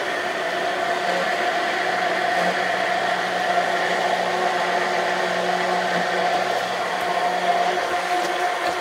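Handheld immersion blender running steadily with a constant whine, its blade in a jug of strawberry purée as oil is streamed in to emulsify a vinaigrette.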